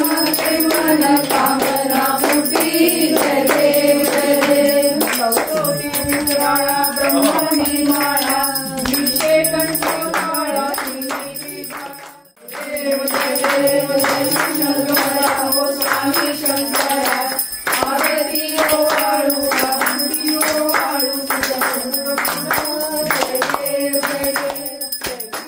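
Devotional aarti song: singing over music with a regular beat, dropping out briefly about halfway through and then starting again.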